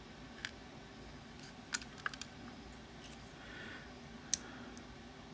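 Small metal lock parts clicking and tapping as a sidebar lock cylinder is taken apart by hand: a few scattered sharp clicks, the loudest about four seconds in.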